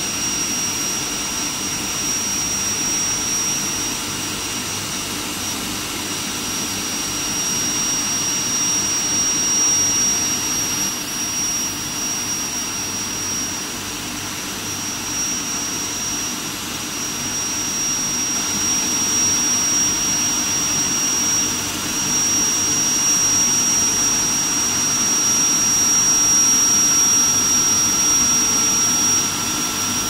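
Steel-plate induction quenching line running: a steady high-pitched whine over a constant rushing noise and a low hum, with no change in the machinery's sound.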